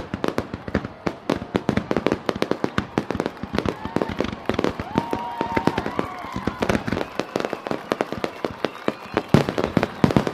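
Fireworks or firecrackers going off in a rapid, unbroken string of sharp bangs and pops, several a second and uneven in loudness.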